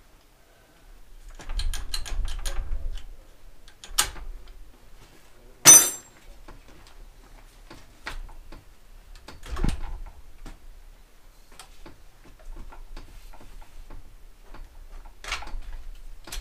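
Rattles, ticks and knocks of a bicycle being lifted and moved out of a workstand, with a sharp metallic click about six seconds in and a dull thump near ten seconds.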